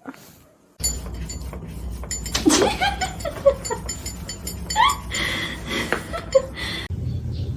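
A person laughing in a run of short bursts that step down in pitch, then again a couple of seconds later, over a steady low hum with small clinks.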